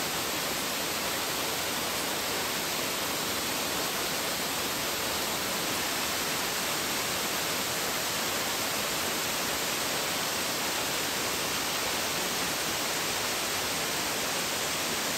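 Waterfall rushing: a steady, even hiss of falling water that holds at one level throughout.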